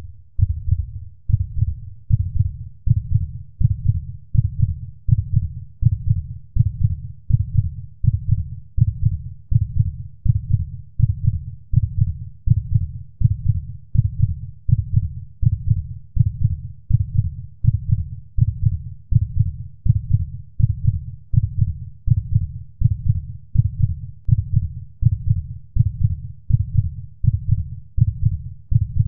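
Heartbeat sound effect: a steady, low, thudding pulse at about three beats every two seconds.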